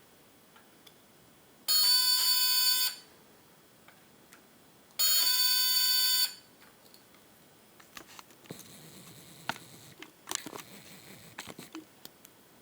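Small speaker driven by a freshly soldered NE555 timer doorbell circuit sounds two steady buzzy tones, each about a second long, a few seconds apart, showing the circuit works. Faint clicks and handling rustle follow near the end.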